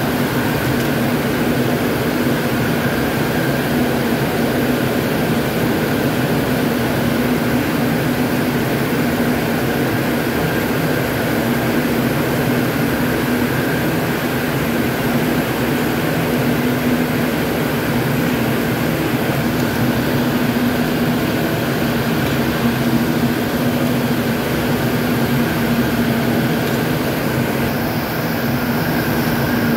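Ring spinning frames running in a spinning mill: a steady, loud mechanical drone with a constant low hum and a fainter higher whine.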